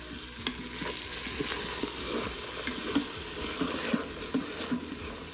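Diced onion and poblano pepper sizzling in butter and oil in an Instant Pot's metal inner pot on sauté, softening as they cook. A stirring utensil scrapes and knocks against the pot now and then.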